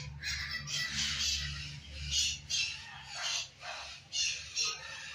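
A flock of birds squawking with harsh, overlapping calls, several a second, as they settle down to sleep for the night.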